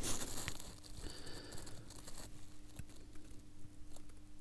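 Faint handling noise with a few small clicks as a watchmaker's screwdriver and tweezers work at a tiny screw in a mechanical watch movement.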